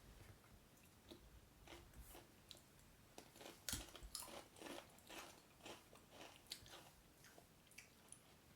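Faint, irregular crunches of people biting and chewing Pringles potato crisps, the loudest crunch nearly four seconds in.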